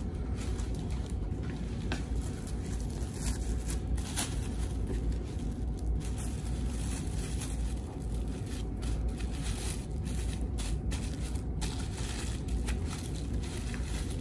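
Thin plastic bag crinkling and crackling in short, irregular handfuls as it is worked over an ultrasound probe, over a steady low hum.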